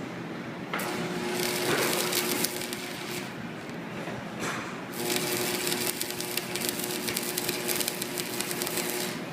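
Stick welding arc crackling and sizzling in two runs, the first about two and a half seconds long and the second about four seconds, with a steady hum from the welder while the arc burns.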